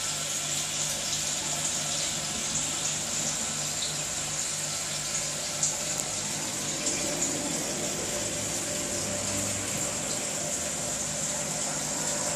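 Aquarium filter running: water splashing and bubbling steadily, with a low steady hum underneath.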